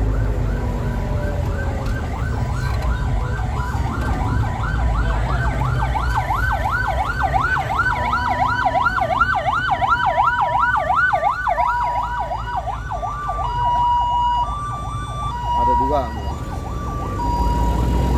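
Ambulance siren sounding a fast rising-and-falling yelp, about four sweeps a second, that grows louder as it nears, then switching to alternating two-tone notes for the last few seconds. Under it runs the low rumble of the bus engine, heard from inside the bus.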